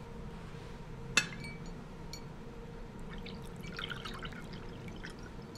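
A sharp clink of china about a second in, then tea trickling from a pot into a cup for a couple of seconds from about three seconds in.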